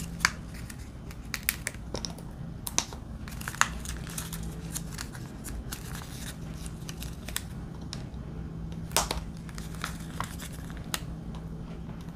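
Small sticker labels being peeled off a paper backing sheet and pressed onto the plastic lids of diamond-storage containers: scattered light crinkles and clicks, a few sharper ones near the start, about three and a half seconds in, and about nine seconds in, over a faint steady hum.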